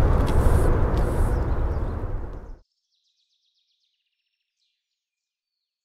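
Outdoor background noise, a low rumble with hiss, fading out over about two and a half seconds and then giving way to silence.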